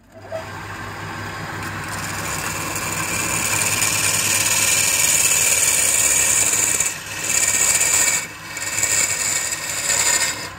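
Wood lathe running with a steady motor hum while a steel chisel cuts into the spinning wooden cylinder, a loud hissing scrape. The cutting noise builds over the first few seconds and drops away briefly three times near the end.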